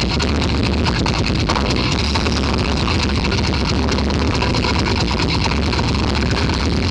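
Harsh noise music: a loud, unbroken wall of distorted noise with a heavy low rumble and a fast, fine crackle across it.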